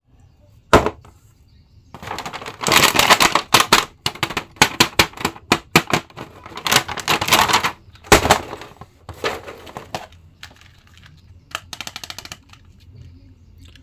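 Stiff plastic blister packaging crackling and clicking as a toy action figure is handled and pulled out of its card: bursts of rapid crackles, with a single sharp snap shortly after the start and another about eight seconds in.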